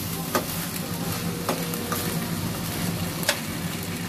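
Pangas fish pieces and onion masala sizzling in a metal pan as a spatula stirs them, with about four sharp scrapes or knocks of the spatula against the pan.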